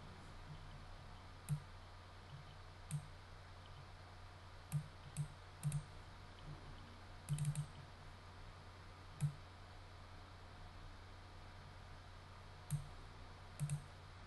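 Computer mouse buttons clicking, about a dozen scattered clicks including quick double-clicks, while files are browsed and folders opened. A faint steady low hum lies underneath.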